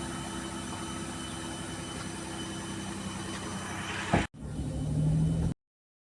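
Vehicle engine idling steadily, a sharp click about four seconds in, then a short louder low hum before the sound cuts off suddenly.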